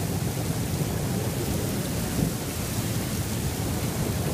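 Heavy rain falling steadily in a thunderstorm: a dense, even rush of noise, heaviest in the low end, with no distinct thunderclap.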